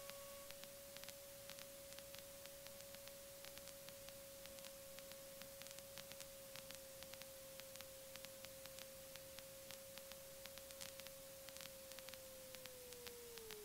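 Near silence on the cockpit audio feed: a faint, steady single tone that slides lower in pitch near the end, with faint scattered ticks.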